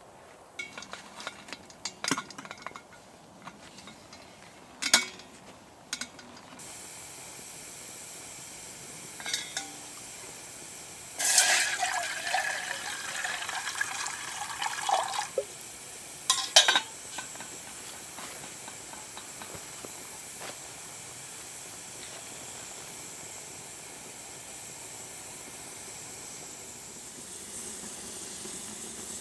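Water poured into a metal camp kettle for about four seconds, followed by a sharp knock. Before it come a few scattered sharp knocks, and a campfire of split wood burns with a steady hiss through the rest.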